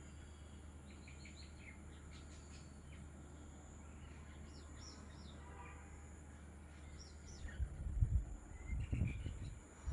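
Small birds chirping with short, scattered calls over a steady background hum. About three quarters of the way in, a few loud low rumbling thumps, the loudest sounds here, cover the calls for a couple of seconds.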